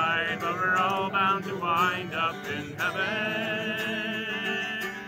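Folk ballad with acoustic guitar and a singer, ending a verse on a long held note.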